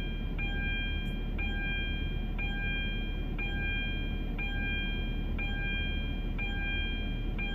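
A car's electronic warning chime repeating about once a second, each a steady tone with a shorter lower note at its start, over a steady low hum.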